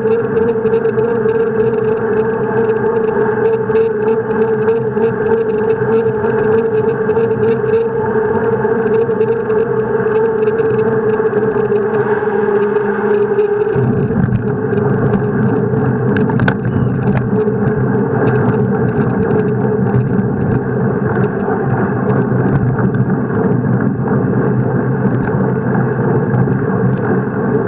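A bicycle riding at about 30 km/h: a steady hum of tyres rolling on pavement mixed with wind on the microphone. The low rumble changes suddenly and grows stronger about fourteen seconds in.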